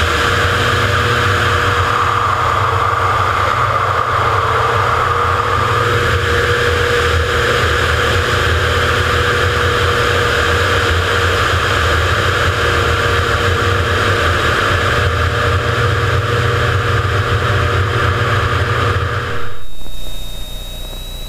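Steady drone of a single-engine propeller aerobatic plane in flight, engine and propeller heard from outside on the wing with a strong rush of air. Near the end it drops suddenly to a quieter cockpit hum with a thin, steady high whine.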